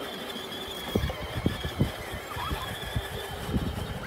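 Kids' battery-powered ride-on ATV running, its electric motor and gearbox giving a steady high-pitched whine that fades near the end. Irregular low thumps come through underneath from about a second in.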